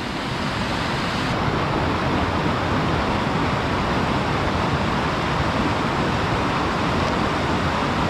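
Forest stream cascading over rocks: a steady rush of water.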